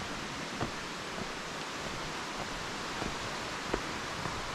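Footsteps on a dirt trail, one about every half second, over a steady rush of flowing water.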